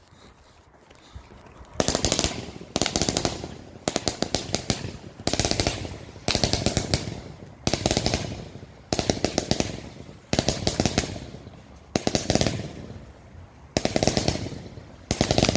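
Tracer Bullet 105-shot fan cake firework firing, starting about two seconds in. It goes off in volleys of rapid sharp pops, about one volley every second and a half, each volley sending up a fan of tracer comets.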